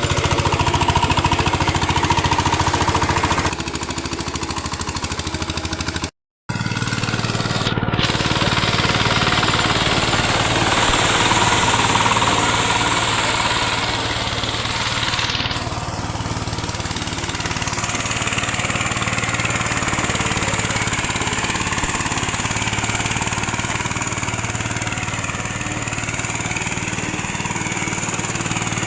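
VST power tiller's single-cylinder diesel engine running steadily with a hard, rapid chugging. The sound drops out completely for a moment about six seconds in, then the engine continues.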